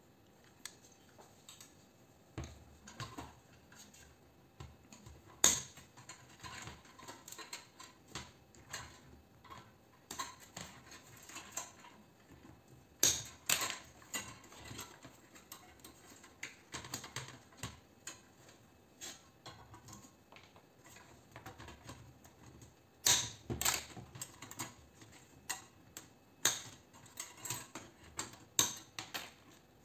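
Irregular clicks, snips and knocks of hand tools and small parts as a light fitting is taken apart on a workbench: pliers and cutters working on its wires and terminals. A few sharper clacks come about five, thirteen and twenty-three seconds in.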